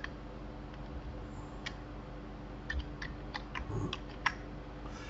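Scattered clicks of a computer mouse and keyboard, about nine in all, bunched in the second half, over a faint steady hum.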